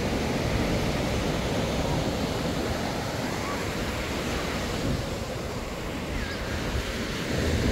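Surf washing onto the beach: a steady rush of breaking waves that eases a little about five seconds in, then swells again.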